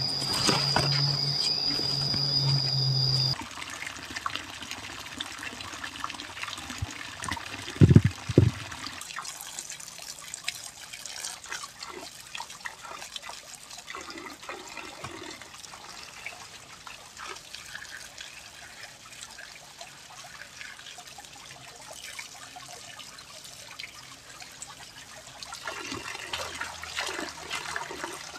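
A thin stream of water trickling and splashing into a bowl of water while hands swish and rinse leafy greens in it. Two loud dull thumps come about eight seconds in. Before that, for the first three seconds, insects chirr with a steady high tone over a low hum, then cut off suddenly.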